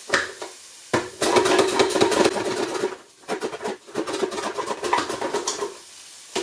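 A carrot is slid rapidly back and forth across the plastic Nicer Dicer Chef adjustable mandoline slicer, its blade set to 3 mm, with a quick run of rasping cuts. There are two runs of strokes, from about a second in and again from about three seconds in to near the end.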